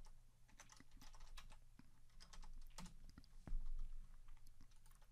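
Typing on a computer keyboard: a run of separate key clicks as a username and password are entered, with a louder low thump about three and a half seconds in.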